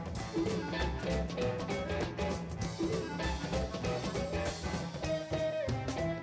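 Background music: an instrumental tune with a steady drum beat and pitched notes.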